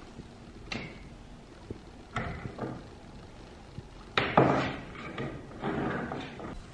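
A few irregular knocks and clatters, like objects being handled and set down, the loudest about four seconds in.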